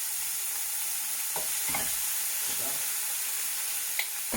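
Bacon pieces, garlic and leek sizzling steadily in hot olive oil in a frying pan, with a few light knocks of a utensil stirring them.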